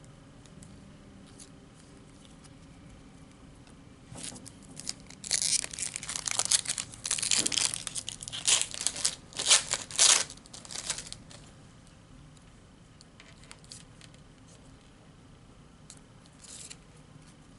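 Foil wrapper of a Panini Prizm trading-card pack being torn open and crinkled in the hands: a run of sharp tearing and crackling from about four seconds in to about eleven seconds in. A brief faint crinkle comes near the end.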